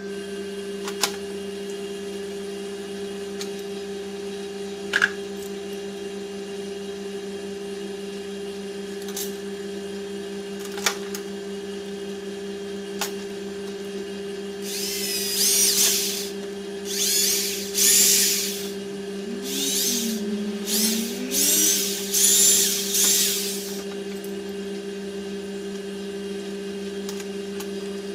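Handheld electric drill drilling into a piece clamped in a bench vise, in a series of short bursts starting about halfway through, over a steady low hum.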